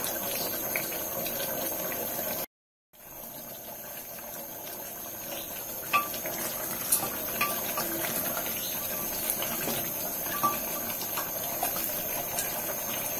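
Curry simmering in an open pressure cooker over a gas burner, a steady hiss, with a few light knocks and scrapes of a wooden spoon stirring it. The sound cuts out for about half a second around two and a half seconds in.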